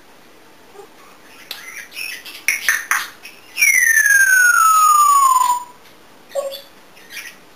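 African grey parrot making a run of clicks and short scratchy sounds, then one long, clear whistle sliding steadily down in pitch for about two seconds. Two short, lower calls follow near the end.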